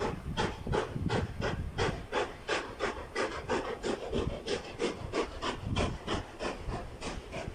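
Steam locomotive exhaust chuffing in a steady rhythm of about three beats a second as the engine works under steam.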